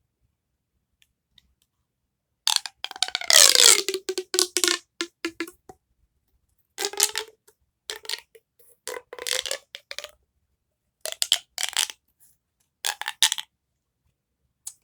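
Small hard plastic fidget toys clicking and clattering as they are handled and set down, in several short bursts with pauses between.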